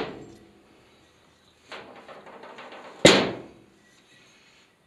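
Airboat reduction gearbox and its coupling being handled on a metal worktop: faint clicks and scraping, then one sharp metal knock about three seconds in that rings out briefly.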